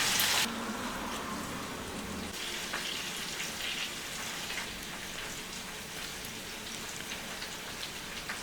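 Food frying in a pan: a steady sizzle with small scattered crackles. A louder rushing hiss cuts off suddenly about half a second in.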